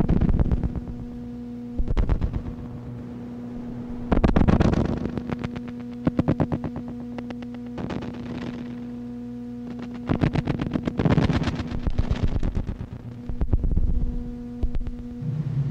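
Noise music: a steady electronic hum under recurring bursts of rapid, stuttering pulses every two seconds or so, with a deeper drone coming in near the end.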